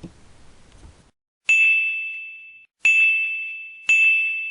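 A bell-like chime struck three times, a little over a second apart, each a clean high ding that fades away before the next.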